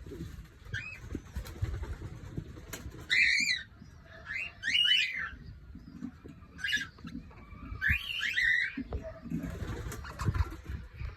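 Cockatiels calling: a series of short, rising chirps and whistles coming in separate bursts, the loudest about three and five seconds in and another near eight seconds.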